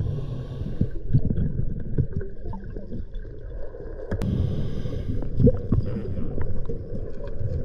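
Underwater sound during a scuba dive: a steady low rumble with gurgling from the diver's exhaled regulator bubbles, swelling about four seconds in, and scattered small clicks and knocks as a gloved hand digs through silt and rocks on the riverbed.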